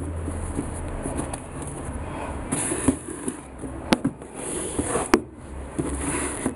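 Rustling handling noise as knit sneakers are moved about in a cardboard shoe box, with two sharp taps about four and five seconds in.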